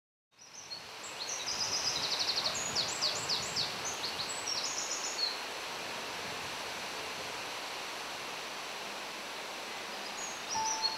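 Outdoor ambience fading in: songbirds singing quick high trills and chirps for the first five seconds and again near the end, over a steady rustle of wind in tree leaves.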